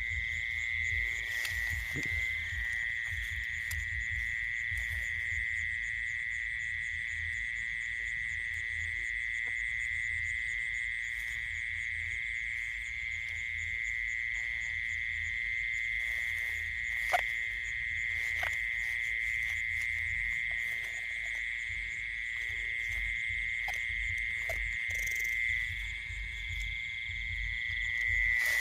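Night chorus of calling frogs and insects: a steady high trill that holds without a break, with a fainter, finer pulsing above it. A low rumble runs underneath, and there is one sharp click about seventeen seconds in.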